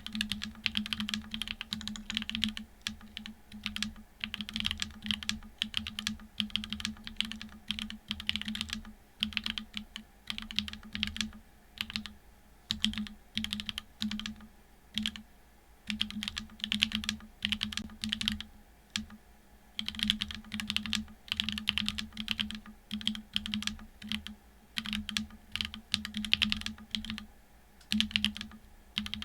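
Continuous typing on a TGR Dolice mechanical keyboard with a carbon-fibre plate and unlubed SW x Gateron Deepping switches (4.0 mm travel). The keystrokes click in a dense patter, broken by a few short pauses.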